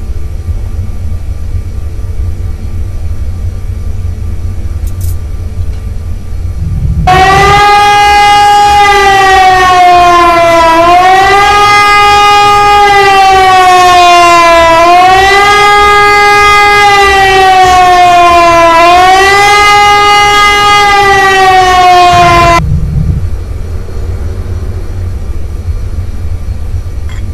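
A steady low rumble. About seven seconds in, a loud sustained siren-like tone takes over, its pitch sagging and recovering slowly about every four seconds. About five seconds before the end it cuts off and the low rumble returns.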